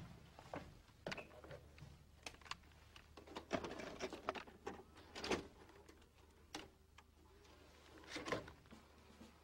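Hands handling a boxy electronic deck: scattered light clicks, knocks and rustles as its panels and controls are worked. There is a denser run about four to five seconds in and another about eight seconds in, over a low steady hum.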